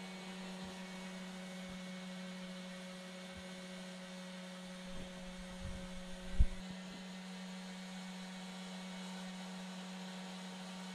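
Steady low electrical hum. A few soft knocks and one sharper thump about six and a half seconds in, as metal cans used as weights are set down on a fresh fiberglass panel layup.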